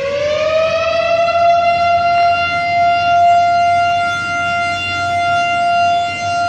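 Outdoor civil defense (air raid) siren sounding loud: its pitch rises a little in the first second, then holds a steady wail, swelling and easing slowly in loudness.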